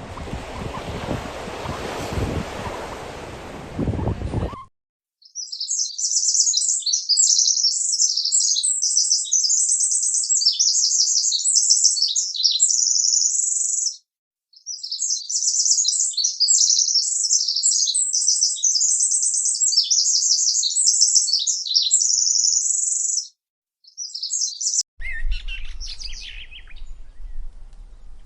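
A small songbird singing long, rapid, high-pitched twittering phrases, broken by two short pauses. It is preceded by a few seconds of rushing noise that cuts off abruptly, and near the end gives way to a fainter stretch with a low hum and scattered chirps.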